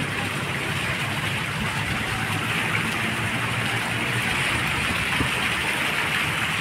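Fountain jets splashing: a steady rush of falling water.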